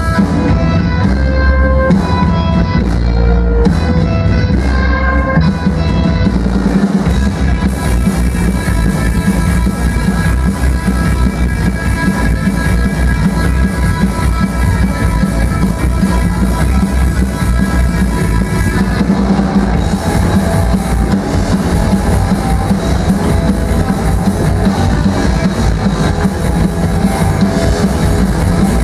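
Live instrumental surf rock from a trio of electric guitar, upright double bass and drum kit. For the first seven seconds or so the guitar picks out single notes over bass and drums with little cymbal, then about eight seconds in the full band comes in with steady cymbals.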